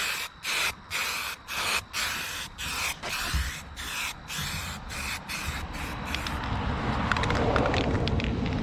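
Aerosol spray can of primer hissing in quick short bursts, about two or three a second, as it coats a steel exhaust downpipe. The bursts give way to a steadier rushing hiss near the end.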